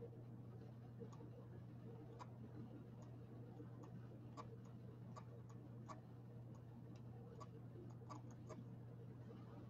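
Faint, irregular clicking of a computer keyboard and mouse, about fifteen scattered clicks, over a steady low hum.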